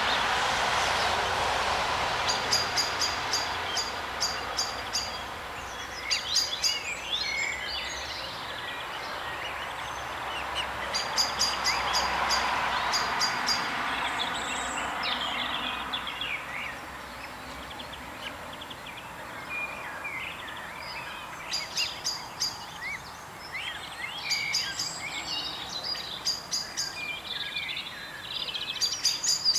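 Small birds singing and chirping: a fast, high, ticking trill repeats several times, with short rising and falling chirps in between. Under them runs a steady rushing hiss that swells and fades.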